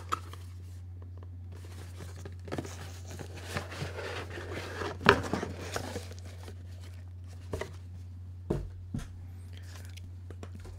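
Cardboard packaging being opened and a plastic power strip pulled out of its box: rustling and crinkling with scattered clicks and knocks, the sharpest about five seconds in. A steady low hum runs underneath.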